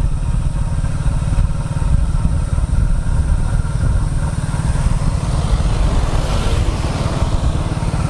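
A motorcycle engine running steadily, a rapid low pulsing thrum.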